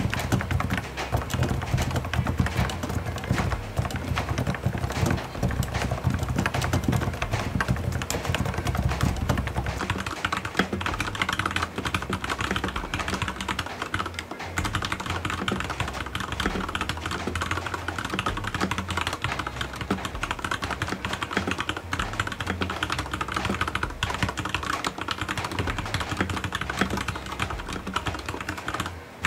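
Continuous fast typing on a full-size electrostatic capacitive (Topre-style) keyboard, then, after a short break about halfway through, typing on a Leopold FC900RBT mechanical keyboard with Cherry MX Red 45 g linear switches.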